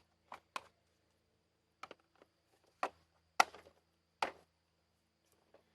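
About six separate sharp taps and knocks of something hard being handled, spaced irregularly, the loudest about three and a half seconds in. No vacuum motor is running.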